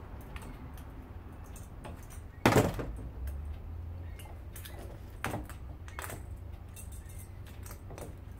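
Small metal parts and tools being handled on a bench: scattered light clicks and clinks, with one sharp knock about two and a half seconds in and a smaller one a few seconds later.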